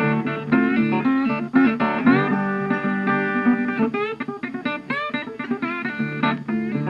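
Background guitar music, picked notes with several bent notes gliding upward in pitch.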